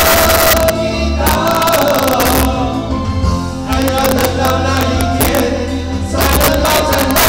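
Live Christian worship song: singing over a band with steady bass and drums, recorded loud and rough.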